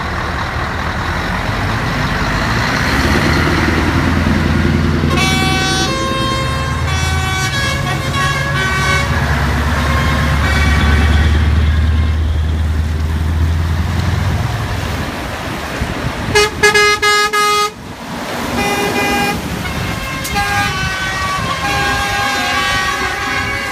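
Scania trucks moving off in convoy: a heavy diesel engine drone swells and passes while air horns sound on and off. The loudest moment, about two-thirds through, is a rapid run of short horn blasts.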